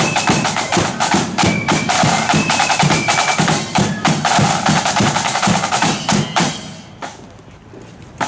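Marching flute band's drums, snare drums and bass drum, beating a fast, steady rhythm. The drumming stops about six and a half seconds in.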